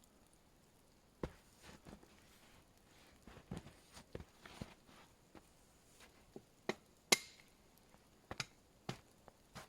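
Scattered wooden knocks and cracks from sticks being handled, chopped or snapped in bushcraft work. The loudest is a sharp crack about seven seconds in.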